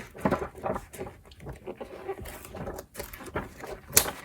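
Magazine pages being flipped and handled: irregular paper rustles and flaps, with one sharper snap of a page about four seconds in.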